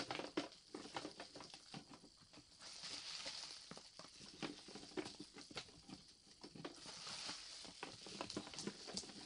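Wrapped sweets crinkling and clicking as they are handled and dropped through the hatch into a plastic toy candy grabber machine: an irregular run of light taps and wrapper rustles.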